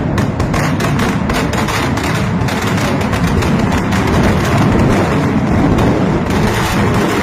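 Mascletà firecrackers (masclets) going off in a dense ground barrage, so many bangs at once that they merge into a continuous loud rumble.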